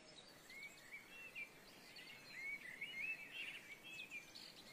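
Faint birdsong: small birds giving many short chirps that rise and fall in pitch, over a quiet background hiss.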